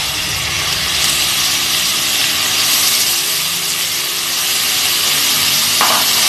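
Marinated chicken pieces frying in hot oil in a steel wok, a loud steady sizzle as they go into the pan and are stirred with a wooden spatula. A brief knock near the end.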